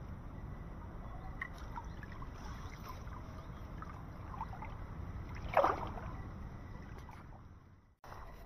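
Shallow stream water sloshing and splashing as a hand net is swept and dipped through it, with small splashes throughout and one sharper splash about five and a half seconds in. The sound fades away shortly before the end.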